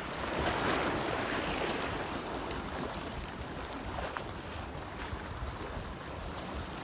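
Heavy surf washing against a breakwater, with a wave surge that swells in the first second and then eases to a steady rush, and wind buffeting the microphone.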